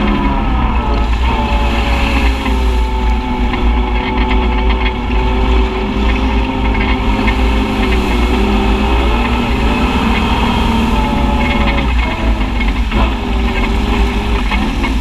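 Side-by-side UTV engine running as it drives along a muddy trail, with a steady heavy low rumble underneath. The engine pitch drops just after the start, holds steady for several seconds, and dips again about twelve seconds in.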